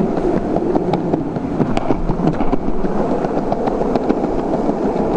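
Skateboard wheels rolling over cobblestones: a loud, continuous rattle and rumble studded with many small clacks. This is the terrible noise that makes the cobbled sidewalk unfit for skating.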